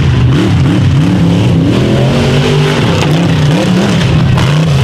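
Rock bouncer buggy's engine revving hard and unevenly under load. The pitch rises and falls every second or so as the throttle is worked.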